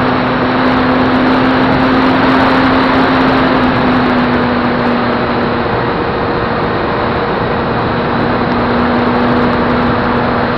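Onboard sound of a Flyzone Calypso RC plane in flight: a loud, steady rush of wind over the camera with the hum of its electric motor and propeller. The hum drops out for a couple of seconds past the middle and then comes back.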